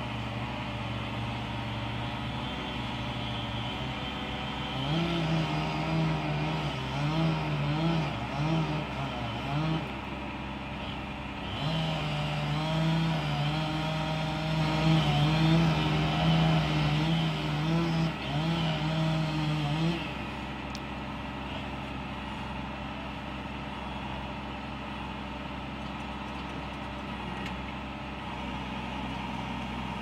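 A chainsaw cuts into a large tree trunk for about fifteen seconds, its pitch wavering as it bogs in the wood and pausing briefly twice. Under it, a truck engine drones steadily, and after the saw stops only the engine is heard.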